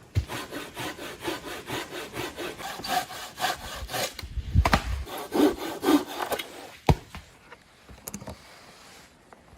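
Hand saw cutting through wood in quick, even back-and-forth strokes, about three or four a second. The sawing stops about two-thirds of the way through, followed by a few scattered knocks and clicks.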